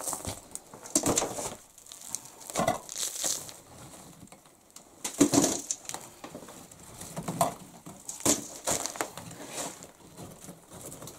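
Burnt-out brick and clay rubble scraped and broken out of a brick stove's firebox by gloved hands, in irregular crunches and scrapes every second or two.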